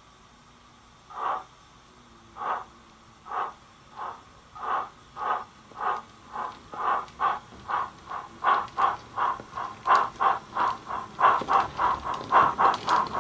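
Steam exhaust chuffs from the DCC sound decoder of a Bachmann BR Standard 4MT tank locomotive model, played through a small sugarcube speaker as the loco pulls away. The beats start about a second in, roughly a second apart, and quicken steadily to about four a second while growing louder.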